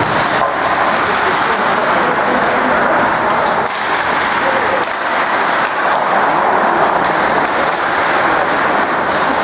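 Steady din of an ice hockey game in a rink: skates scraping on the ice, with voices mixed in.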